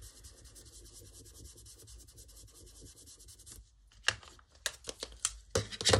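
Cloth rubbing ink onto card stock in quick short strokes, a fast scratchy rubbing for about three and a half seconds. It stops, and then come a few sharp clicks and taps as an ink pad is handled.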